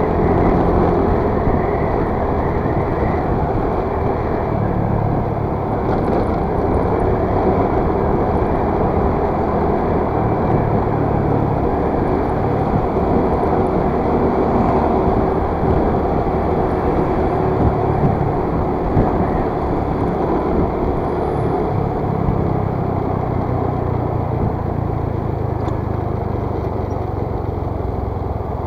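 Motor scooter being ridden along a city street: its small engine runs steadily under wind and road noise, easing off slightly near the end as it slows behind traffic.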